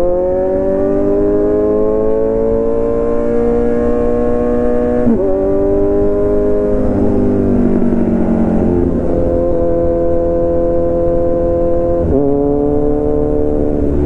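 Kawasaki Z900's inline-four engine through an Arrow full-system exhaust, accelerating under way: the pitch climbs steadily for about five seconds, drops sharply at a gear change, then holds a fairly steady pitch, with another sharp drop at a shift near the end.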